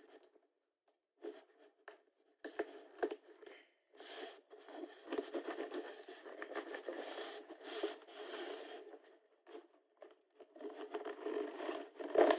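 A courier parcel's packaging being torn open and rustled by hand: a few short rips and crinkles, then a longer spell of tearing and rustling, and more near the end.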